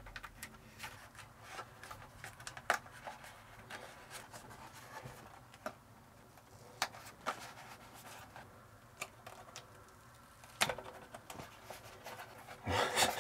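Hands handling a cardboard box shroud wrapped around a vent hose fitting: scattered light rustles, taps and clicks, with a louder rasping rustle near the end.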